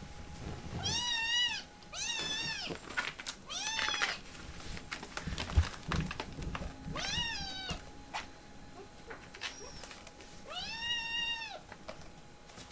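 A baby kitten meowing: five high-pitched calls, each rising and then falling in pitch, spaced a second to a few seconds apart, with faint scattered clicks between them.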